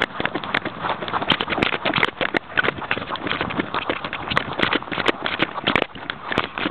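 A Jack Russell terrier moving through deep snow with a camera on its collar: a dense, irregular run of clicks, crunches and rustles as the camera jostles and rubs against the dog's fur and its paws break through the snow.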